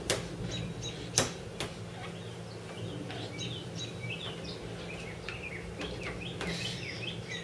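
Hands tapping a plastic high chair tray: three sharp taps in the first two seconds. They are followed by a string of faint, short, high chirping squeaks.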